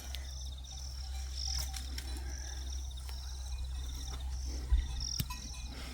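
Outdoor garden ambience: short high chirping calls repeating about once or twice a second over a fast, even insect trill, with a steady low hum beneath. A single low thump comes near the end.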